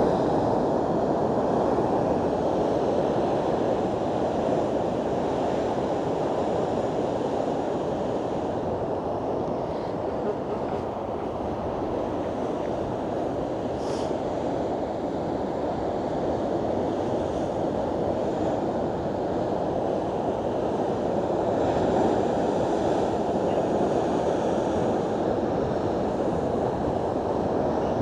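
Heavy ocean surf breaking in a continuous rush, with strong wind buffeting the microphone; it swells a little about three-quarters of the way through.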